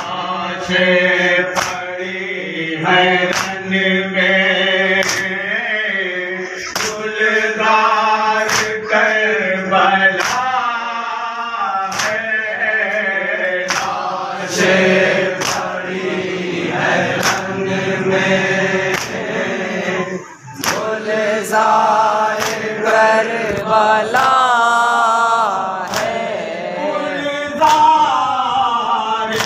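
Men chanting a nauha, a Muharram lament, through a microphone. Sharp chest-beating (matam) strokes keep time, about one every second and a half.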